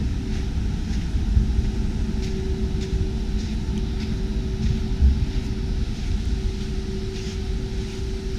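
Steady low rumble and constant hum of jet aircraft engines from the nearby airport, with light footsteps brushing through beach vines about twice a second.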